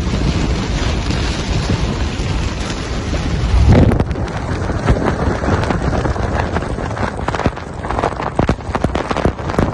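Torrential rain and wind beating on a moving vehicle, with a loud low thump about four seconds in and then many sharp taps of drops striking the glass and body.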